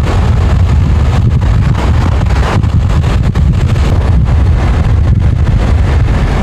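Loud, steady rush of wind over the microphone from a moving car, over the car's road noise, with a heavy low rumble.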